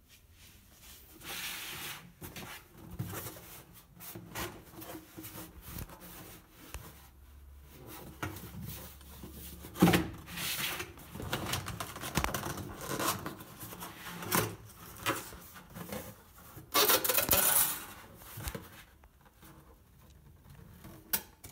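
Corrugated cardboard box being handled and unfolded by hand: irregular rubbing, scraping and creasing of the flaps, with a sharp knock about halfway through and a longer, louder scrape about three-quarters of the way through.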